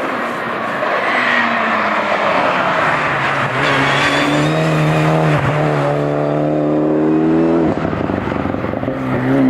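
Hill-climb race car accelerating hard, its engine note climbing through the revs and dropping sharply at two upshifts, about halfway and about three quarters of the way through.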